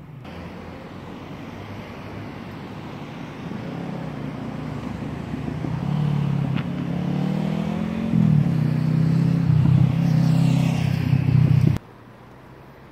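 Motor vehicle engine running and growing steadily louder as it approaches. Its pitch shifts about two-thirds of the way through, and the sound cuts off abruptly near the end.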